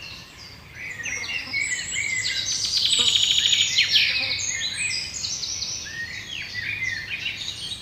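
Many birds chirping and calling at once in a dense, overlapping chorus of short high notes, busiest and loudest in the middle.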